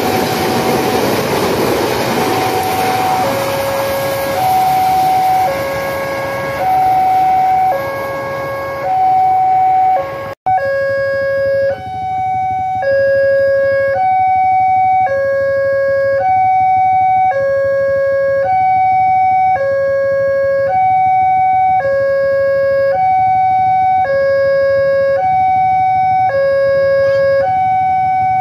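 Rushing noise of a passing passenger train fading away, then an electronic two-tone hi-lo warning siren that alternates steadily between two fixed pitches, each held about a second, with no change in pitch or loudness.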